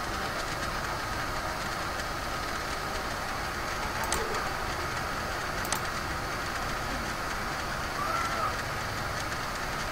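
Steady background hiss and hum of room tone through the recording microphone, with two sharp clicks a second and a half apart about four seconds in: computer mouse clicks.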